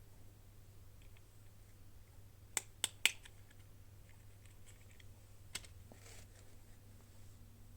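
Small sharp clicks and taps from hands handling doll-toy packaging and pieces: three quick clicks about two and a half to three seconds in, another a little past halfway, then a short rustle, with faint small ticks between.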